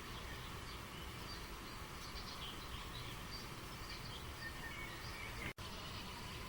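Steady rush of flowing stream water with small birds chirping in short, scattered calls over it. The whole sound drops out for a split second about five and a half seconds in.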